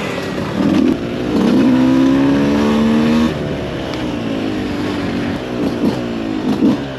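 Small two-stroke bike engine revving under acceleration: its note climbs steadily for about two seconds, drops away suddenly about three seconds in, then runs on at a lower, more uneven pitch.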